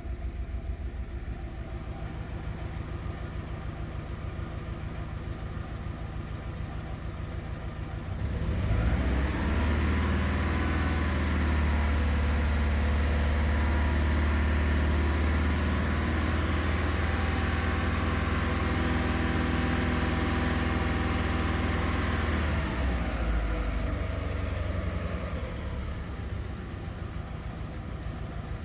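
2000 VW Beetle 2.0L four-cylinder engine, which has been throwing a P0304 cylinder 4 misfire code, idling. About eight seconds in it is brought up to a higher, steadier speed and held there for roughly fourteen seconds, then drops back to idle.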